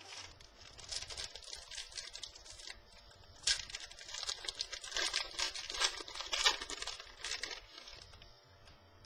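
Trading cards and their plastic or foil packaging being handled: a run of crinkling and rustling with sharp crackles, loudest from about three and a half seconds in and dying away near the end.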